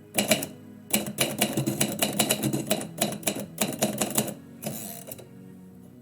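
Typewriter keys striking in a quick run of typing, about six keystrokes a second with a short pause early on, stopping about four seconds in. A brief rasping noise follows.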